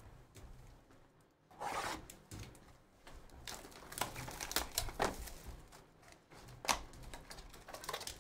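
Panini Absolute football card box being unwrapped and opened by hand: plastic wrapping and cardboard rustling, crinkling and tearing, with a few short clicks. The sounds come in scattered bursts, busiest through the middle.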